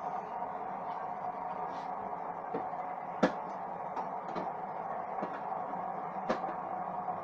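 A handful of short, light clicks and knocks, one much louder about three seconds in, over a steady background hum.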